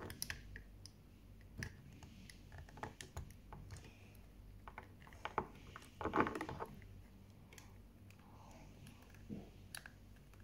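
Faint scattered clicks and taps of hands handling cardboard toy packaging, with one louder short sound a little after six seconds in.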